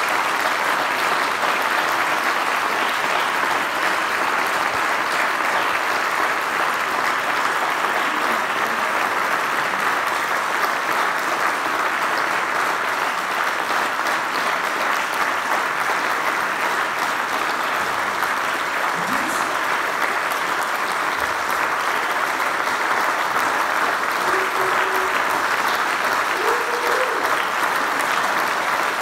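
Audience clapping steadily and without a break, a long, even applause.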